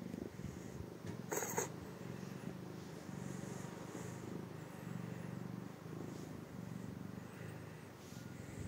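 Domestic cat purring steadily while being stroked, a low rumble that pulses in an even in-and-out rhythm about every half second. A brief sharp scratchy noise sounds once, about a second and a half in.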